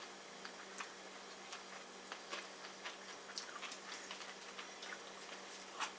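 Faint, irregular small clicks and taps from people eating sushi at the table, over a low steady electrical hum.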